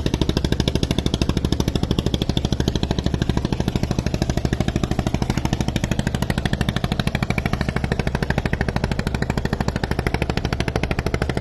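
Boat's diesel engine running steadily on the river, a fast, even chugging.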